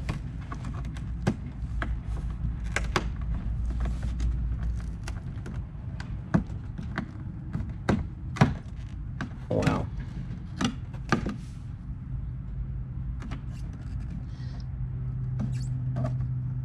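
Hands fitting a plastic adhesive skid plate piece up under a car's front splitter: scattered light clicks, taps and scrapes, thickest in the middle, over a steady low hum.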